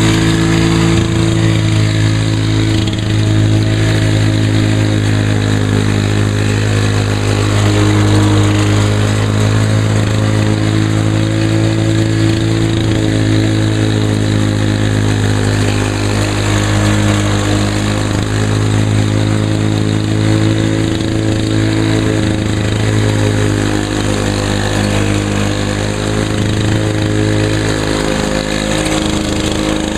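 Lawn-Boy two-stroke walk-behind mower engine running steadily while mowing grass.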